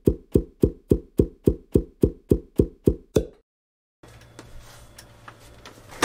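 A fast, even beat of muffled thumps, about three and a half a second, stopping about three seconds in. After a brief dead silence there is faint room tone with a low hum.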